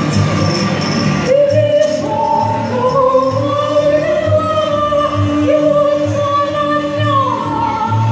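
Runway music with a steady beat; about a second in, the busier high part drops away and a voice sings long, slowly gliding held notes over the beat.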